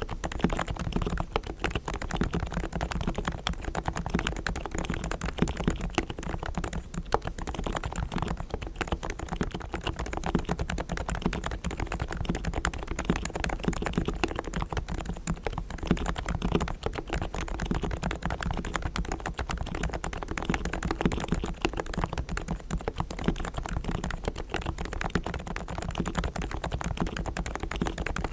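Realforce R3 tenkeyless Topre electrostatic-capacitive keyboard with 45 g silent equal-weight switches, fully lubed, being typed on quickly and without pause: a dense, even stream of muted keystrokes.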